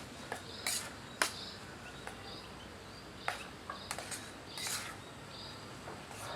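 Short high bird chirps repeating every second or so over a faint steady hiss of outdoor background, with several sharp clicks or knocks in between.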